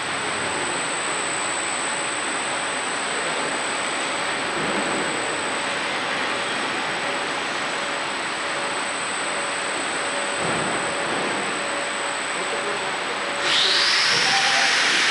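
Geared tilting drive of a 500 kg welding positioner running, a faint steady whine under a steady rushing noise. Near the end a louder hiss starts abruptly.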